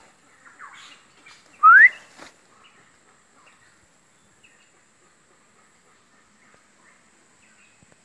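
A single loud whistle rising in pitch, about two seconds in, followed by faint scattered bird chirps in the forest.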